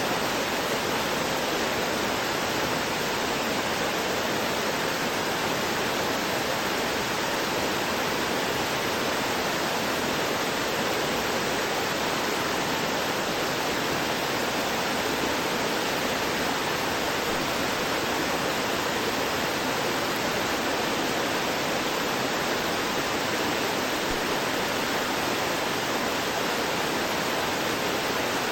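A small forest stream gurgling and rushing over rocks, a steady, unbroken sound of flowing water.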